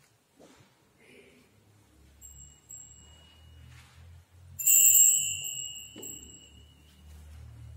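Altar bell rung as the priest receives communion from the chalice. There is a faint high ring about two seconds in, then a loud strike about halfway through whose high ringing tone fades away over a couple of seconds.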